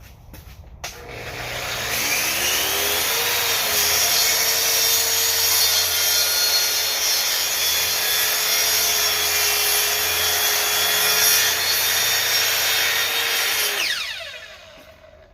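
Kreg track saw switched on with a click about a second in, coming up to speed and running steadily through a long trimming cut along a large wooden desktop. It is switched off near the end, and its motor winds down with a falling pitch.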